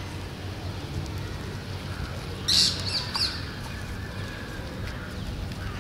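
A bird calls: one short, sharp, high call about halfway through, then a shorter second one, over a steady low rumble.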